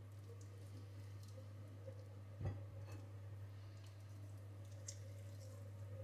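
Cooked chicken being torn off the bone by hand: faint squishy pulling and small clicks, with one light knock about two and a half seconds in, over a steady low hum.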